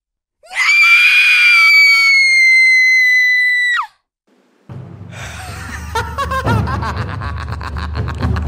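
A high-pitched human scream, held for about three seconds and dropping away sharply at the end. After a brief silence, music begins, with low sustained tones and repeated drum hits that grow denser.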